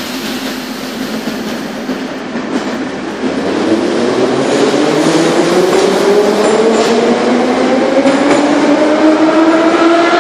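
Kyiv metro train pulling out of the station: the whine of its traction motors climbs steadily in pitch, several tones rising together over the rumble of wheels on rail. It grows louder about three seconds in.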